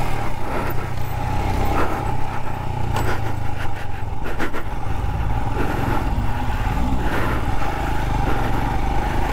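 Royal Enfield Himalayan's single-cylinder engine running steadily as the motorcycle is ridden over a dirt track, with a few scattered clicks and knocks.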